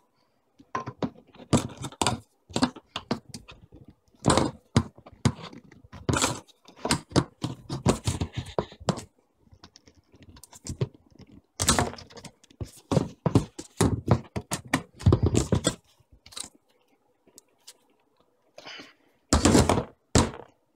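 Hollow plastic knocks and clatter of 3/4 inch PVC pipes and fittings being handled, bumped on the countertop and pushed together as they are glued, coming in irregular bunches with a lull a few seconds before the end.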